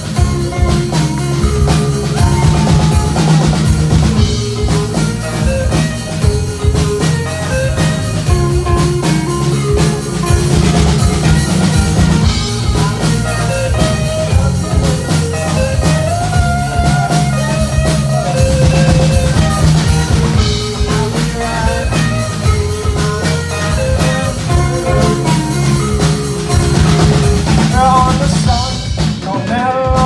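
A rock band playing live: a drum kit keeping a steady beat under electric guitars, with a continuous full sound and no breaks.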